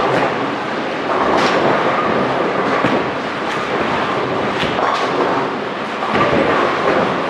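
Bowling center din: balls rolling down the lanes in a steady rumble, with pins crashing and sharp clacks several times.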